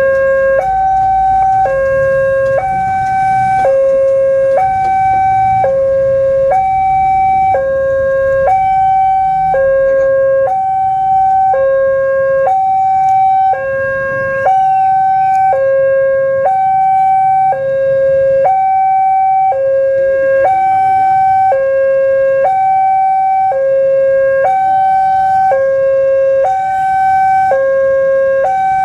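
Railway level-crossing warning alarm sounding its two-tone signal, a lower and a higher tone alternating about once a second: the warning that a train is approaching and the barrier is closing.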